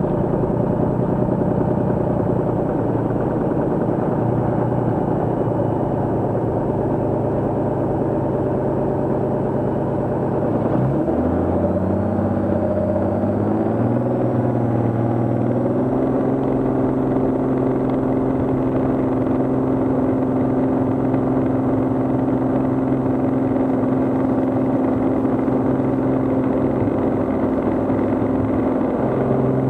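Cirrus SR22's six-cylinder piston engine and propeller running steadily. About eleven seconds in, the engine note dips briefly, then rises over several seconds as the throttle is advanced, and holds at the higher pitch.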